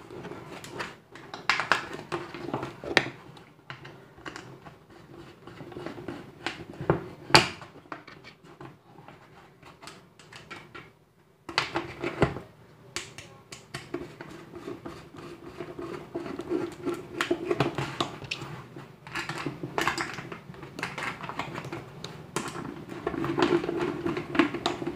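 Screwdriver work on a large plastic bottle, fixing a 4-inch subwoofer speaker to it: irregular clicks, knocks and creaks of the screws, driver and thin plastic being handled.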